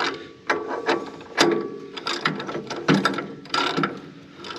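Hand ratchet wrench clicking in short spells as bolts are run down and tightened on the bulldozer's shimmed idler side plates, with sharp metal clanks in between.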